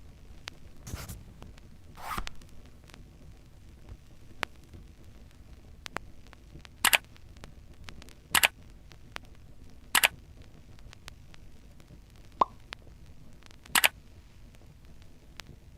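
A series of short, sharp clicks at irregular intervals, a second or more apart, over a faint steady hiss; the loudest four come in the second half.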